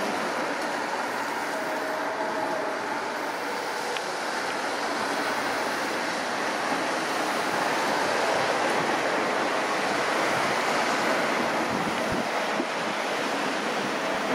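Street traffic going past: a steady wash of tyre and engine noise, a little louder about halfway through as a van passes close by.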